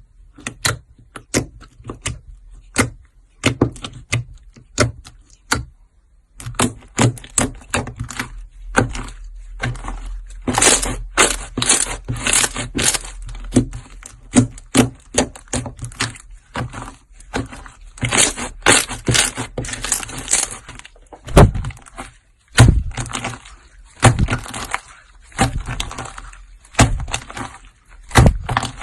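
Slime being pressed and squeezed by hand, giving off irregular runs of sharp crackling pops and clicks. The pops come sparsely at first and grow thick and rapid from about six seconds in.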